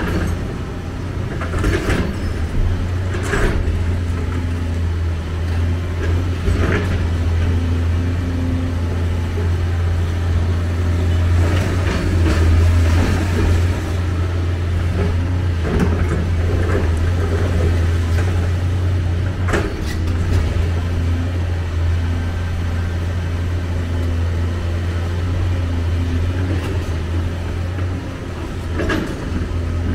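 Hyundai R290LC-9 crawler excavator's diesel engine running steadily with a deep hum while it handles demolition rubble. Sharp knocks and clatters of bucket and rubble come every few seconds, busiest around the middle.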